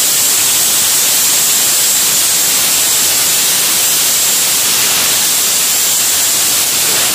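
Compressed-air blow gun hissing loudly and steadily as it blasts air into the rocker-box pockets of a Royal Enfield cylinder head, clearing out leftover engine-flush oil.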